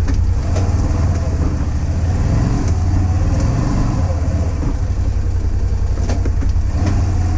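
Can-Am Defender HD10 side-by-side's V-twin engine running steadily, a loud low drone, with a few short knocks and rattles from the vehicle over the trail.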